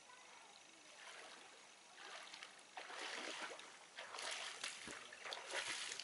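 Water splashing in irregular surges, building from about a second in and loudest in the second half.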